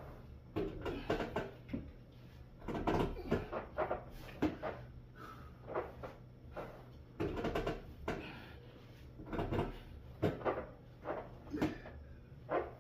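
A string of irregular knocks and clunks, about one or two a second.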